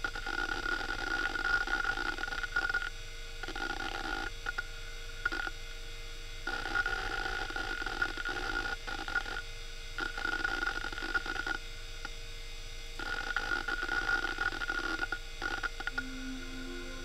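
Western Digital Caviar 21200 1.2 GB IDE hard drive working, its heads seeking in busy bursts of chatter with short quieter pauses between them. A few low tones begin near the end.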